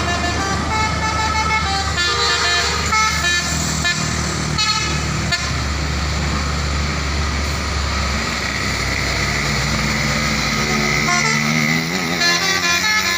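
Trucks' telolet horns, multi-tone musical air horns, playing short stepped tunes over the steady low rumble of the truck engines. A rising tone comes in near the end.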